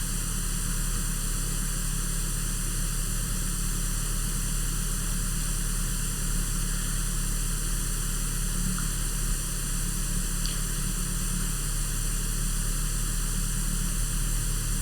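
Steady hiss and low hum, unchanging throughout, while an unpowered ceiling fan coasts down; no distinct fan noise stands out.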